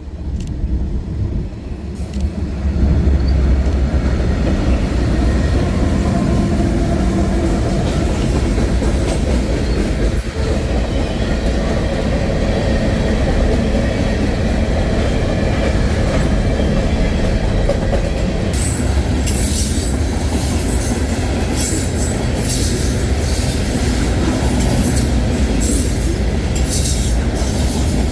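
Train rolling past on the tracks: a steady rumble of wheels and cars that grows louder about two to three seconds in. About two-thirds of the way through, harsh, irregular high-pitched noise from the wheels joins it.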